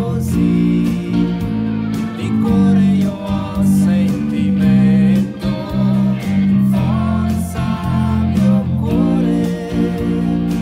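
Six-string electric bass playing a bass line of held low notes along with a backing recording of the song that has singing and other instruments.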